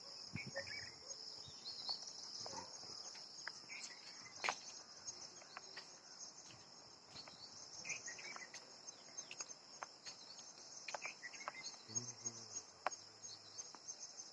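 A steady, high-pitched chorus of insects chirping, with scattered short chirps and clicks over it.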